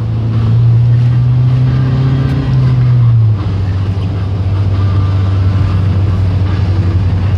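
Vehicle engine and road noise heard from inside the cab while driving: a steady low drone that climbs slightly in pitch, then drops in pitch and level about three seconds in.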